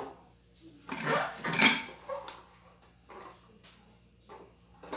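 Metal cookware clattering and knocking on a granite countertop as an aluminium saucepan and a portable electric hotplate are moved about. The loudest clatter comes about one to two seconds in, followed by a few lighter knocks.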